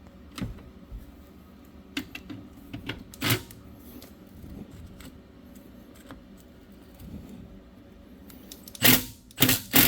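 Hand tools clicking and clinking on a rear brake caliper as its bolt is worked loose, with a screwdriver wedged in to stop the spinning caliper slide pin. The clicks are scattered, with a few louder metal clanks about nine seconds in.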